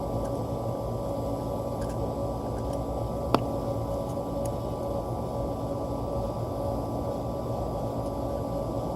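Steady mechanical hum with a few held tones, the drone of nearby running machinery, with a single sharp click about three seconds in.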